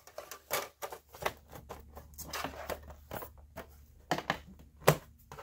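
An aluminium MacBook Pro being handled on a wooden desk: a run of light clicks and knocks as the bottom cover is pressed into place and the laptop is flipped over, with one louder knock near the end.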